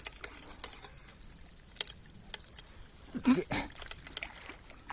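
Scattered clicks and rustles of a fishing line and catch being handled, with one louder short low sound about three seconds in, over a steady high-pitched insect trill.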